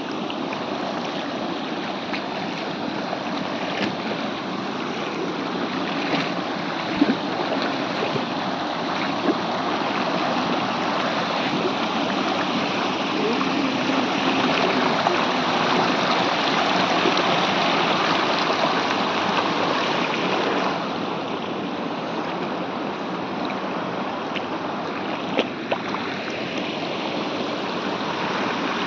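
Waterfall water rushing steadily, a dense even hiss of falling water, with a few brief knocks; the sound becomes slightly thinner about two-thirds of the way through.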